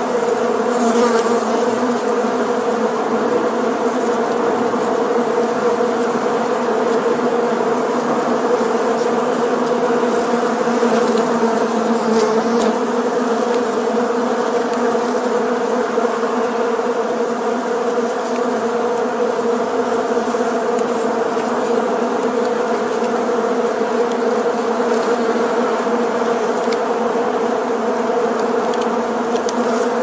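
Honeybees crowding a hive entrance, buzzing in one steady, dense hum that does not let up.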